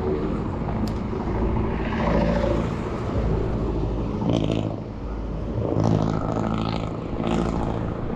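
Wind noise on a road cyclist's camera microphone during a fast downhill descent, a steady low rumble, with motor vehicle engines running close by.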